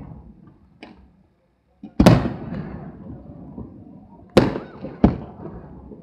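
Aerial firework shells bursting overhead: a small crack near the start, then three loud bangs, one about two seconds in and two close together near the end, each trailing off in a long rumbling echo.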